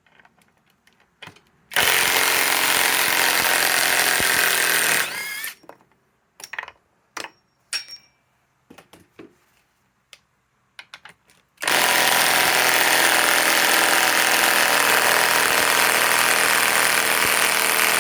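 Cordless compact impact wrench hammering as it backs a lag bolt out of pre-drilled wood, a run of about three seconds. Scattered handling clicks follow, then a second, longer hammering run starts about two-thirds of the way in.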